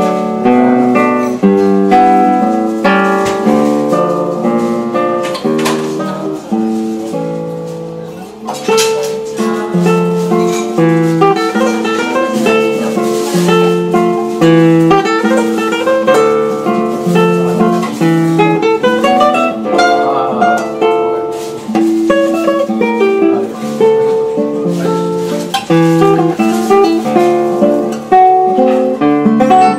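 Classical guitar played solo fingerstyle: a plucked melody over a moving bass line, with a quick run up and back down about twenty seconds in.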